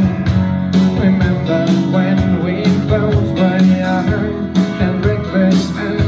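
Live acoustic guitar playing chords, with a man singing over it.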